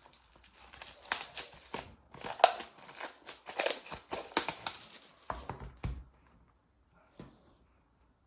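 Plastic and paper packaging crinkling and rustling as an album's contents are handled, in dense, irregular bursts. It goes quiet about six seconds in, leaving only a few faint ticks.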